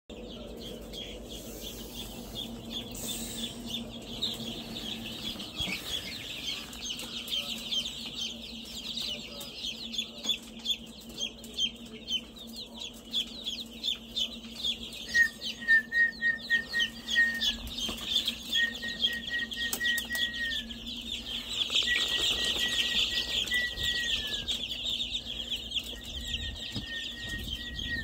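A crowd of newly hatched chicks peeping continuously, a dense chorus of short high peeps, over a steady low hum. About halfway through, a lower call repeated in short rapid runs joins in several times.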